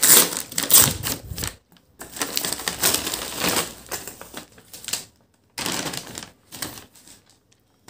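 Brown paper mailer being torn open and crinkled by hand, in irregular bursts of tearing and rustling with short pauses, then lighter rustling as the packaging is handled.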